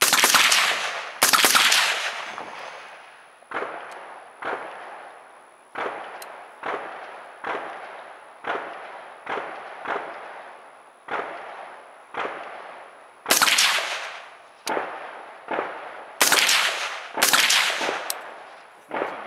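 Suppressed carbine fired shot by shot at roughly one shot a second, about eighteen shots in all, each a sharp crack with a fading echo tail; a few shots are louder than the rest. The suppressor is a parallel path baffle (PPB) design.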